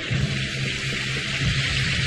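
A loud, steady hiss with a low, even hum underneath.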